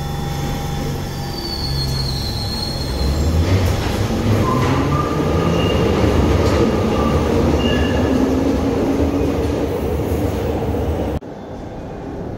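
Glasgow Subway train pulling out of a station: a rumble of wheels on rail that grows louder about three seconds in, with high squealing tones from the wheels over it. It cuts off abruptly about eleven seconds in, leaving a quieter rumble.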